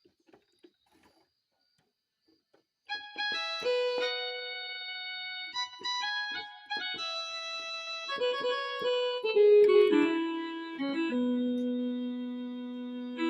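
Yamaha PSR-E233 portable keyboard playing a short melody on a piano-like preset voice, a run of separate notes with lower held notes near the end. Before it there are about three seconds of near silence with a few faint clicks.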